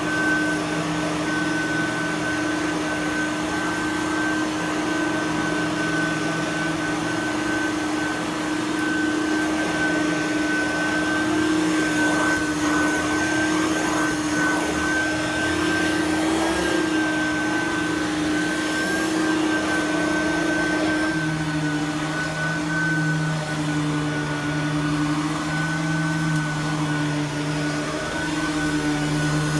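Simplicity Freedom lightweight direct-air upright vacuum running steadily on carpet, with a constant motor hum and a high whine; its lower tone shifts slightly about two-thirds of the way through.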